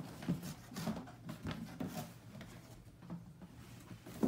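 Large cardboard box handled: its flaps and lid rubbing, scraping and knocking in a run of irregular light taps.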